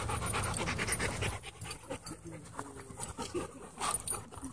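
Dogs panting quickly, close to the microphone; a husky is the nearest at first, then a black shepherd-type dog.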